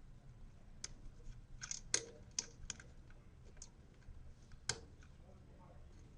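Irregular small clicks and taps from air tubing and its threaded fitting being handled and fitted to the positioner's output port, with two louder clicks about two seconds in and just before five seconds.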